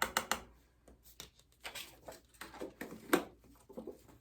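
Small utensils and containers handled while measuring a teaspoon of pigment: a quick run of light clicks at the start, then scattered scrapes and taps.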